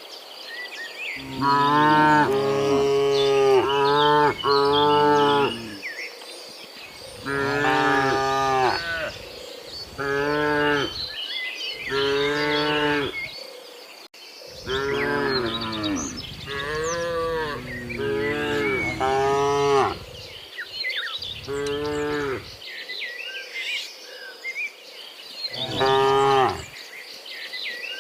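Several cows mooing one after another, a dozen or so calls of about a second each, some overlapping, with faint insect or bird chirps in between.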